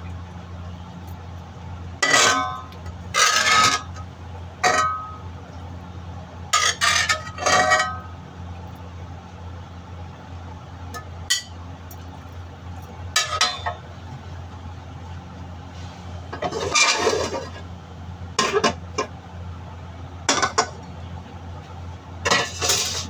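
Cooking utensil clinking and scraping against a frying pan in short, scattered bouts, over a steady low hum.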